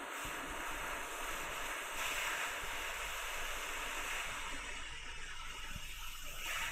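Hot air rework station blowing a steady rush of air onto a BGA reballing stencil to reflow the solder paste into balls. The hiss grows louder about two seconds in and eases a little past the middle.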